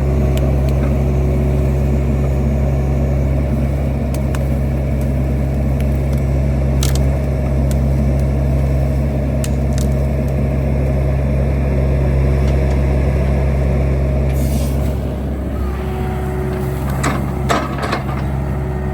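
Engine of heavy digging equipment running steadily close by, with a few sharp knocks scattered through.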